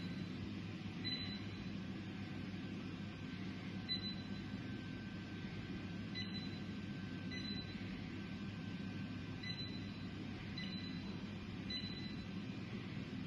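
Electric wall-mounted fireplace's control unit giving seven short, high beeps at irregular intervals as its settings are changed, over a steady low hum.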